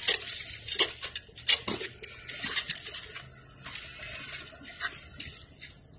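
Leafy branches and soil rustling and crackling as a shrub is worked out of a black plastic pot, with scattered light clicks and knocks, the loudest about a second and a half in.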